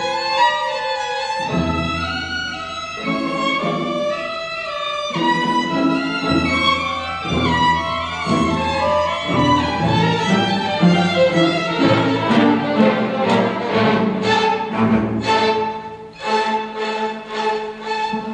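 String orchestra of violins, violas, cellos and double basses playing a fast Allegro molto movement, with a busy violin line over the lower strings. From about twelve seconds in, the strings play short, sharp repeated strokes, with a brief drop in loudness near the end.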